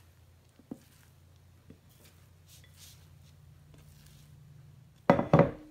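Wet, sticky bread dough being scraped from a glass bowl with a silicone spatula onto parchment paper: faint squishing with a couple of soft taps. Near the end there is a sudden loud knock with a short ringing after it.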